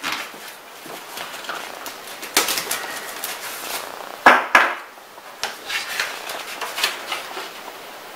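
A cardboard parcel being opened with a knife: irregular scrapes, rustles and clicks of the blade, tape and cardboard, with two louder knocks close together about four and a half seconds in.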